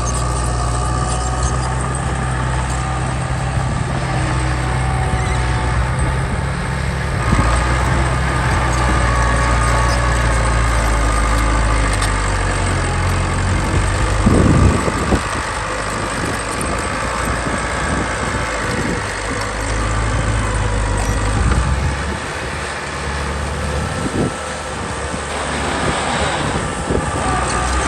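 Heavy diesel machinery engine running, its low drone shifting in pitch several times as the load changes, with a brief loud clunk about halfway through.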